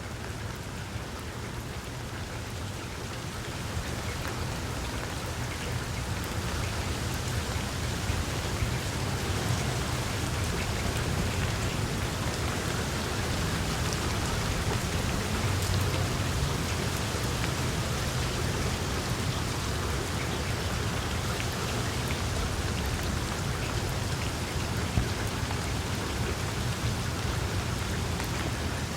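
Rain falling on tree leaves, a steady patter of drops that grows a little louder over the first several seconds and then holds even.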